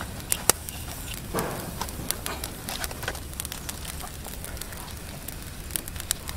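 Coconut-shell charcoal fire crackling under salt-crusted fish on the grill, with scattered sharp pops.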